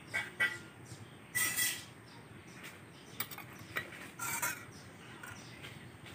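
Metal cookware and utensils clinking and scraping a handful of times, short knocks with a slight metallic ring, the longest a brief scrape about a second and a half in.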